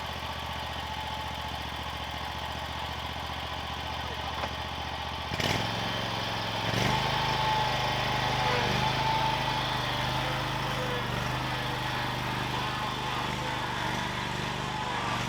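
Riding lawn mower engine running steadily while the mower is worked to get it out of the mud. Its note changes abruptly about five seconds in, and it grows louder a second or so later.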